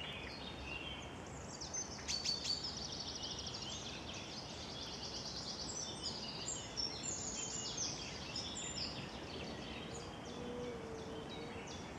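Several songbirds singing at once in spring woodland, with overlapping rapid trills and chirps, over a steady background rush.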